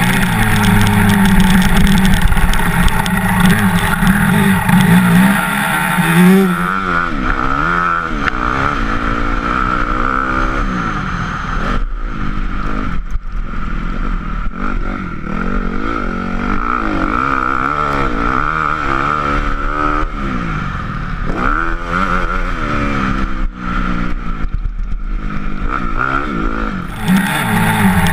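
Honda CRF motocross bike's single-cylinder four-stroke engine being ridden hard, its pitch rising and falling again and again as the throttle opens and closes through the corners and jumps. The sound turns duller about six seconds in and brightens again near the end.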